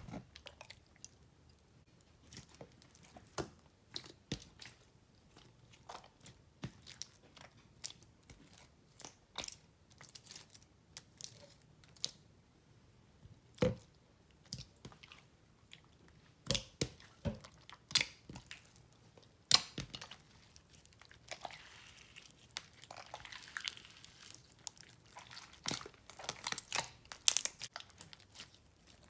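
Slime of white glue and body cream being stirred in a mixing bowl as borax solution is worked in to activate it: irregular sharp sticky clicks, with a few louder taps.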